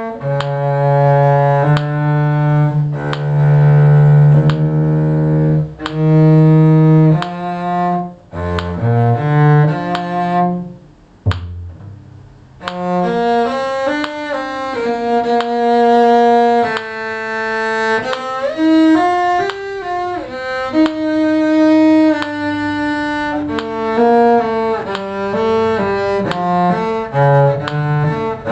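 Cello played with the bow: a slow melody of held notes with some double-stopped passages, breaking off for a pause of about two seconds partway through before going on.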